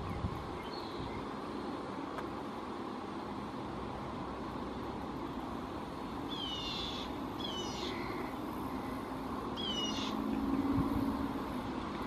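Red-winged blackbird giving three short, high, downward-sweeping calls about six, seven and a half and ten seconds in, over a steady outdoor hiss. A low hum swells faintly near the end.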